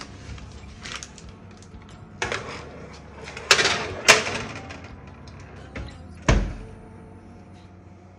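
Baking tray clattering as it is slid onto a domestic oven's rack, with a few sharp clanks, the loudest about four seconds in, then the oven door shut with a low thud about six seconds in.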